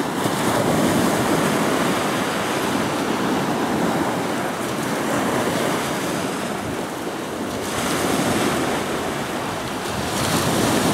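Ocean surf breaking and washing up the shore, swelling and easing, with wind buffeting the microphone.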